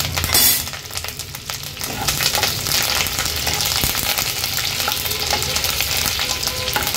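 Fresh curry leaves and chopped green chillies spluttering and crackling in hot oil in a kadhai, tempering for the chivda, with a louder spit about half a second in. A spatula stirs them through the oil in the second half.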